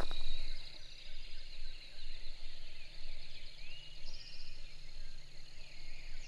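Morning chorus of songbirds: many overlapping high chirps and trills over a faint steady background.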